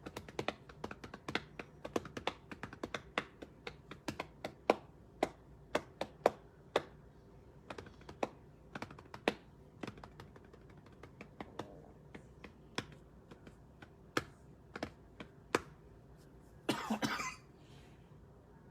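Typing on a computer keyboard: irregular clicks of single keys, a few a second, thinning out in the second half. About seventeen seconds in there is one brief breathy burst.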